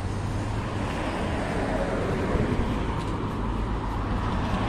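Steady outdoor street noise: a low traffic rumble with a constant low hum underneath.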